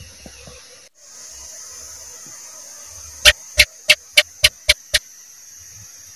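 House gecko (cicak) calling: a run of seven sharp chirps starting about three seconds in, coming slightly faster toward the end, over a steady hiss.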